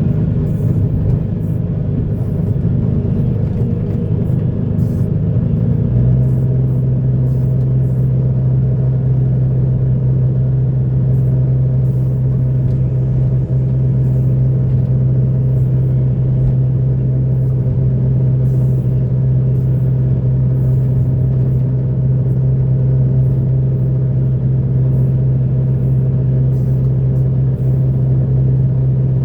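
Heavy earthmoving machine's diesel engine running, rough at first and settling about six seconds in into a steady low drone held at one pitch, with faint scattered ticks.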